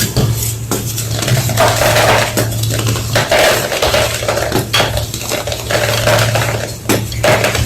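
Homemade gym chalk block being crushed, giving a dense run of crisp crunches and crackles with brittle, clinking snaps as pieces break apart, over a steady low hum.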